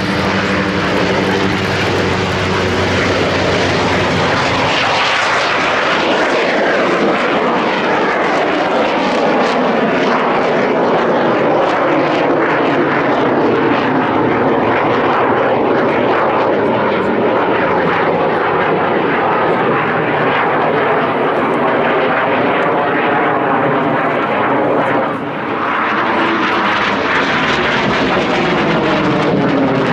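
Yakovlev Yak-130 jet trainer's twin turbofan engines at high power as it flies a display overhead. The loud jet noise sweeps down in pitch as the aircraft passes and shifts continuously as it manoeuvres, with a brief dip in loudness about three-quarters of the way through.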